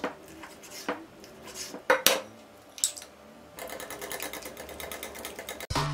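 A kitchen knife slicing raw chicken breast on a wooden cutting board: a few sharp, separate knocks of the blade on the board. About three and a half seconds in, a wire whisk starts beating a creamy batter in a glass bowl, a rapid, steady clatter of metal against glass.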